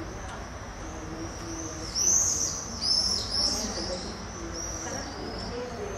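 Small birds calling with short, high, repeated chirps, loudest from about two to three and a half seconds in, over low background noise.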